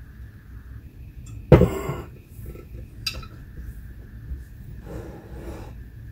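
Handling noise from a large telescope mirror being pressed down in its mirror cell against its springs: scattered clicks and rubs, with one sharp knock about a second and a half in.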